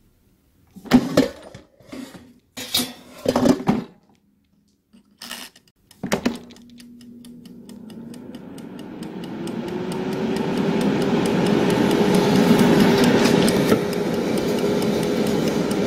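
Alento air fryer being loaded and started: a few clunks and knocks of the basket and dial, then about six seconds in its fan motor starts, humming up in pitch and growing louder over a few seconds before running steadily. The clockwork timer ticks rapidly under the hum.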